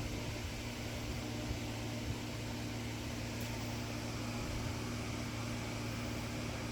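Steady machine hum with a constant hiss and a few low, even tones, like a fan running.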